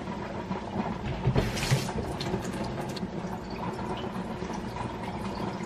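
Water running from a faucet-mounted filter into a stainless steel saucepan, filling it. A knock and a brief clatter come about a second and a half in.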